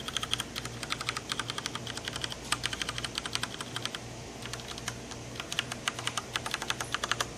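A Cooler Master CM Storm QuickFire Stealth mechanical keyboard being typed on, a fast run of key presses with a few short pauses.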